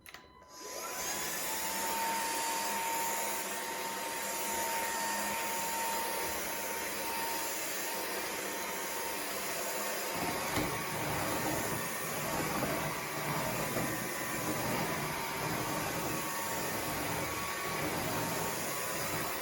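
JS T1 Swift cordless stick vacuum switched on and running: it spins up about half a second in, then runs steadily with a thin whine. Its sound changes about halfway through.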